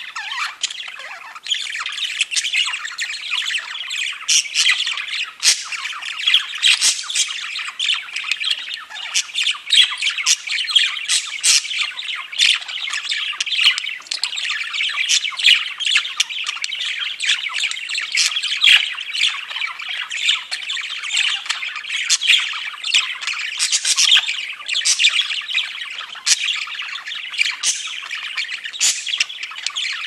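A flock of budgerigars chattering, with many short chirps and squawks overlapping without a break.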